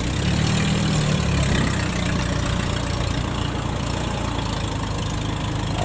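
Engine of a homemade tracked farm crawler running steadily under load as it drives the machine through deep rice-field mud.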